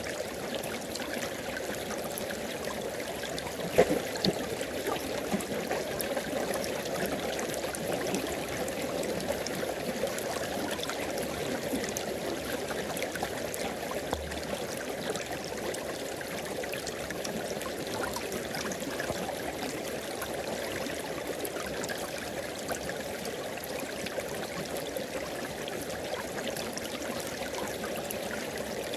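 River water flowing steadily over rocks, a constant rushing and babbling with small splashes. A single sharp knock sounds about four seconds in.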